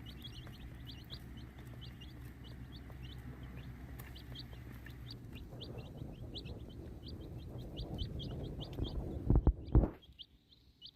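Young chickens peeping in quick, repeated high chirps, over a low steady hum that stops about halfway. Two loud bumps sound near the end, after which the sound drops off sharply.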